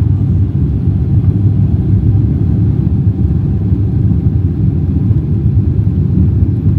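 Steady low rumble inside the cabin of a Boeing 777-300ER climbing out after takeoff: its GE90 turbofan engines at climb power and the rush of air past the fuselage.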